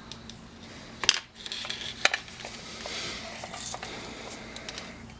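Small metal parts being handled on a workbench: a few sharp clicks and light clinks, the loudest about a second in, over a low steady hum.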